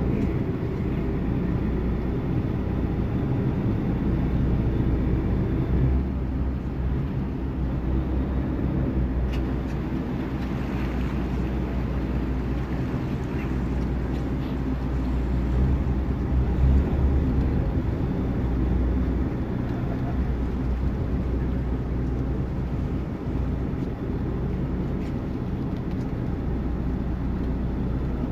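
Tour boat's motor running steadily, a low even hum that holds through without letting up.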